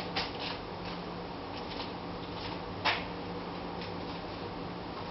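Scattered faint clicks and rustles, with one sharper click about three seconds in, over a steady low hum.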